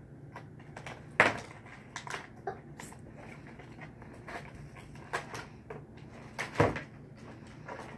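Cardboard and plastic toy packaging being handled and pulled open by hand: scattered crackles and knocks, with two louder knocks, one about a second in and one near the end.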